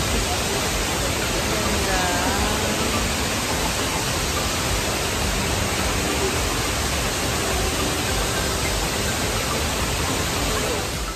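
Steady rushing roar of Shiraito Falls, many streams of water pouring down a wide cliff face.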